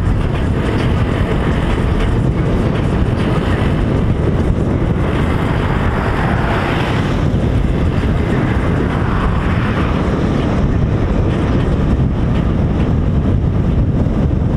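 Wind rushing over a microphone held out of a moving car's window at highway speed, mixed with road noise; it swells briefly around the middle.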